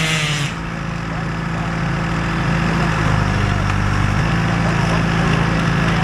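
Gas chainsaw at full throttle cutting into a large tree trunk, released to idle about half a second in; it then idles steadily.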